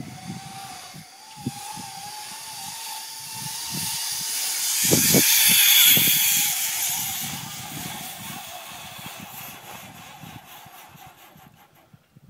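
Zip line trolley pulleys running along a steel cable: a hissing whir that builds as two riders approach, is loudest as they pass about five to six seconds in, then fades as they move away.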